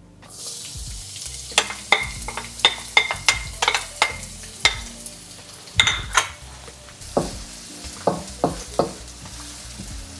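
Diced shallots sizzling in hot oil in a stainless steel wok, a steady hiss with many sharp pops and crackles through the first six seconds. Later a wooden spoon stirs them against the pan, with a few separate knocks.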